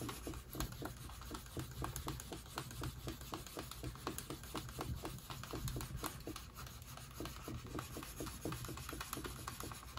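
Hand-held edge burnisher rubbed quickly back and forth along the edge of a tooling-leather holster piece, a faint run of soft rubbing strokes several times a second, burnishing the edge smooth.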